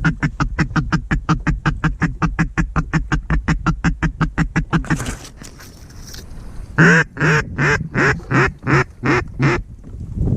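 Mallard duck call blown at a circling duck: a fast, steady chatter of about seven notes a second (a feeding chuckle) for about five seconds, then after a short pause a louder, slower series of about nine quacks.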